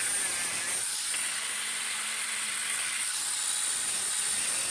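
Angle grinder with a thin 1/8-inch cutoff wheel running steadily while it cuts slots into the tapered point of a 5/8-inch threaded rod, a high, even hiss of the abrasive wheel on the steel. The slots let the rod tip cut its own threads.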